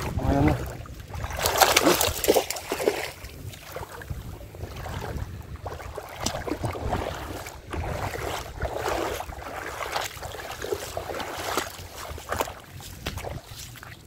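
Feet wading and sloshing through ankle-deep water, giving repeated irregular splashes, with wind rumbling on the microphone.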